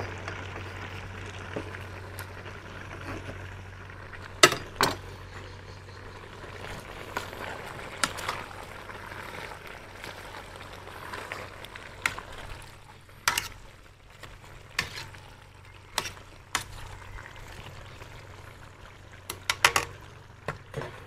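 A pot of goat offal, carrots and onion stewing in milk, sizzling and bubbling over the heat. A metal spoon clinks and scrapes against the aluminium pot with short sharp knocks as the stew is stirred. A steady low hum runs underneath.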